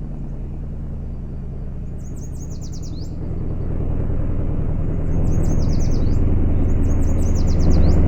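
A vehicle engine running with a low rumble that builds about three seconds in and again about five seconds in, while birds chirp in short repeated bursts.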